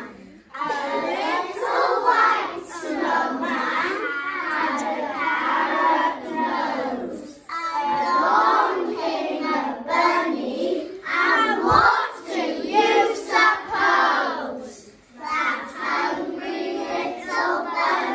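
A group of young children singing a song together in unison, in phrases with short breaths between them.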